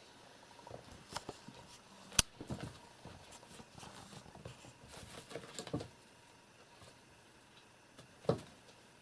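Kittens scampering and pouncing on a rug and batting a straw broom: light scattered taps, scuffs and rustles. There is one sharp click about two seconds in and a thump near the end.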